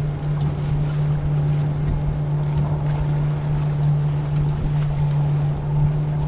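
A boat's engine running steadily at a constant pitch, with wind rumbling on the microphone and water noise.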